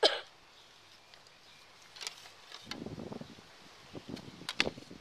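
Handling noises: cloth rustling and toy swords being drawn out and knocked together. There is a sharp swish right at the start, a stretch of rustling in the middle and a few sharp clicks near the end.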